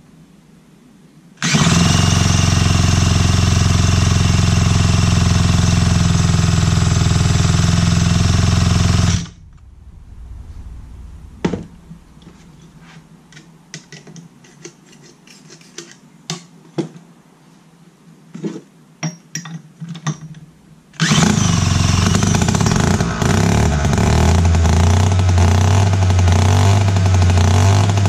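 A 1956 David Bradley 360 gear-drive chainsaw's two-stroke engine running on a little fuel poured into the tank, a sign the carburettor works. It runs loud and steady for about eight seconds and cuts off suddenly. After a stretch of light clicks and knocks, it runs again from about three quarters of the way in.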